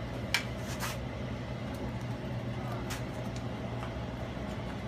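Steady mechanical hum of kitchen equipment, with a few sharp metal clinks of a ladle against a stainless pot of tomato sauce, the loudest about a third of a second in.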